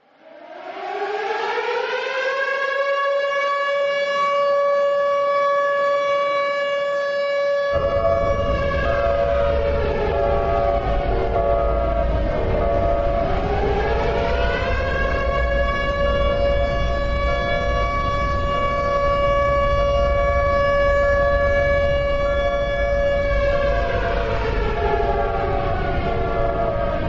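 Civil defense siren winding up, then holding a steady pitch. A second, slightly higher tone and a low rumble join about a third of the way in. The pitch dips and rises again just before halfway, holds, then starts winding down near the end.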